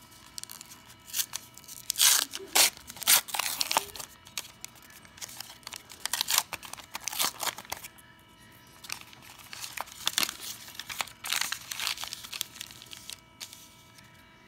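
Foil wrapper of a baseball card pack being torn open and crinkled, in several loud bursts of ripping and rustling.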